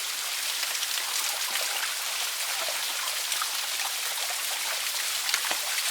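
Small waterfall splashing steadily, with scattered drips and little splashes on top.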